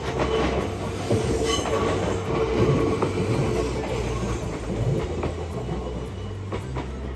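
Kintetsu electric train running through a sharp curve, its wheels squealing against the rails with a steady high tone that fades after about four seconds.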